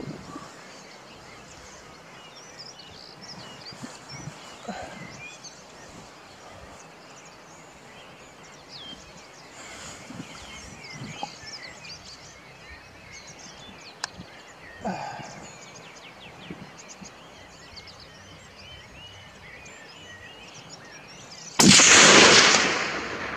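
Quiet outdoor background with faint scattered bird calls, then a single hunting rifle shot near the end, by far the loudest sound, fading over a second or so.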